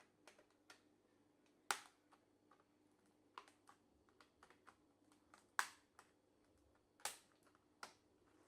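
Irregular faint plastic clicks and taps from prying at a laptop keyboard's retaining clips, with a few sharper snaps about two, five and a half and seven seconds in.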